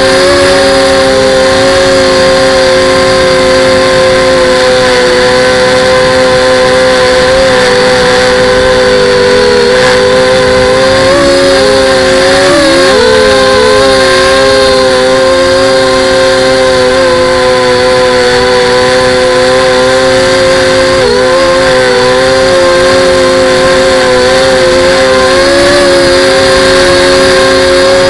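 FPV drone's electric motors and propellers whining loudly at a steady pitch, dipping and wavering briefly about twelve seconds in and again about twenty-one seconds in.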